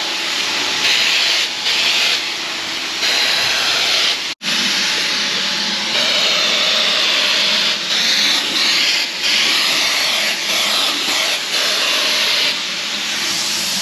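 Wagner Flexio electric paint sprayer running and spraying paint: a loud hiss that swells and drops back every second or two as the trigger is pulled and released. The sound cuts out for an instant about four seconds in.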